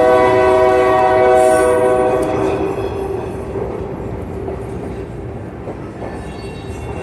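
Freight train locomotive horn sounding a chord of several steady tones, cutting off about two and a half seconds in, followed by the steady rumble of the passing train.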